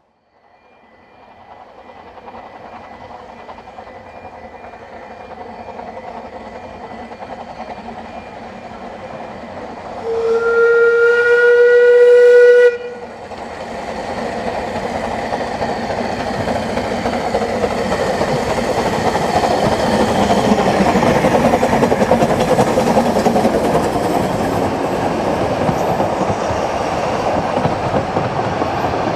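Ffestiniog Railway narrow-gauge steam train, Blanche piloting the Double Fairlie James Spooner, drawing near and passing. About ten seconds in a steam whistle sounds once, steadily, for nearly three seconds; it is the loudest sound. Then the locomotives' exhaust and the carriages' wheels clattering on the rails grow loud as the train runs past.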